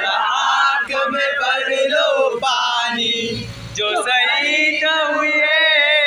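A group of young men singing together in a loud chant, many voices overlapping, with a brief lull about three and a half seconds in.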